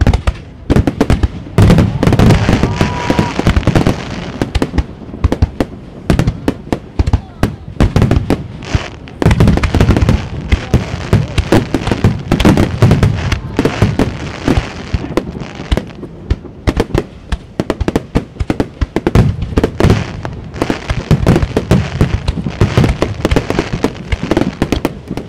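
Aerial fireworks display: a rapid barrage of shells bursting with deep booms, amid dense crackling and popping from the stars. The heaviest booms come about two seconds in and again around nine, thirteen and twenty seconds.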